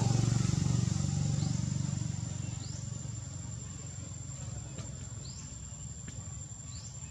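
A motor vehicle's low engine rumble fades away over the first few seconds, leaving outdoor ambience: a steady high-pitched whine and short rising chirps repeating every second or so.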